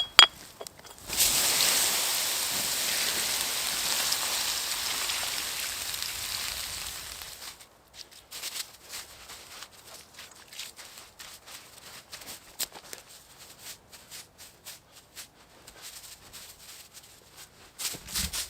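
A campfire being doused: a loud hiss starts suddenly about a second in and slowly dies away over about six seconds, followed by scattered faint crackles and ticks.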